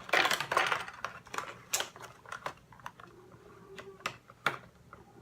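Plastic and cardboard packaging of a boxed action figure being handled, a loud crinkling rustle in the first second followed by scattered sharp clicks and crackles as the figure is worked loose from its tray.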